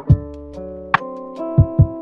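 Background music: held chords and a bass line over a drum beat, with low kick-drum thumps and a sharper snare-like hit.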